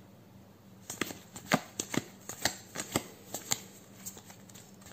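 Flesh and Blood trading cards being flicked through by hand, one card after another. An irregular run of sharp card snaps, several a second, starts about a second in.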